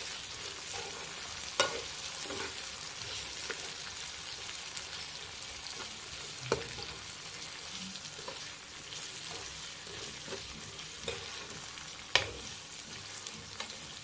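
Chicken, mushroom and capsicum sizzling in a non-stick frying pan while being stirred with a metal spoon. A steady sizzle runs throughout, with sharp clinks of the spoon against the pan now and then.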